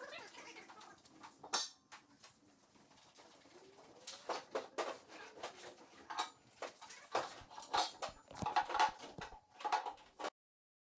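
Irregular metallic clinks and knocks of metal parts or tools being handled, coming thicker in the second half and cutting off suddenly near the end.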